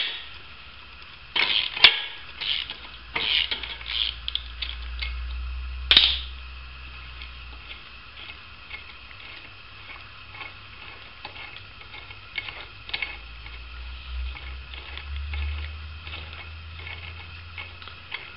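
Small ratchet socket wrench and steel bolt clicking and clinking against a steel engine-mount bracket as the bolt is worked in a partially stripped threaded hole. A run of sharp, irregular metallic clicks comes in the first six seconds, then fainter scattered ticks as the bolt is turned out by hand, over a steady low hum.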